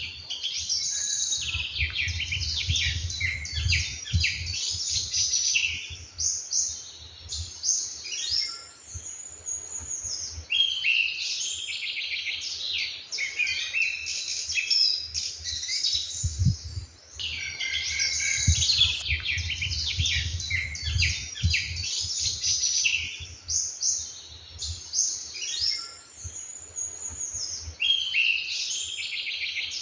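Many songbirds singing together in a morning chorus: quick chirps, trills and whistles overlapping without a break. A low rumble rises underneath twice.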